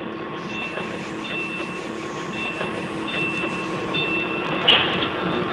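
Electronic sci-fi spaceship sound effect: a steady hum with short high tones coming and going, and a brief loud hiss about three-quarters of the way through.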